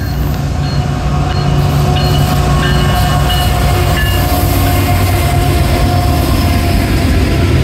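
A string of CSX diesel freight locomotives, GE wide-cab units followed by EMD units, passing close by under power. Their engines make a steady low drone over the rumble of steel wheels on the rail, and the sound swells in the first second as the lead units arrive.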